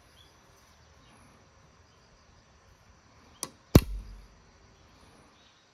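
A quick swish and then, about a third of a second later, a louder sharp hit with a low thud trailing after it.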